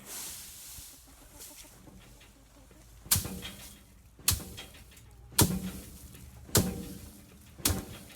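Hand-threshing of wheat: five sharp, even blows about a second apart, beginning about three seconds in, each knocking the grain loose from the heads.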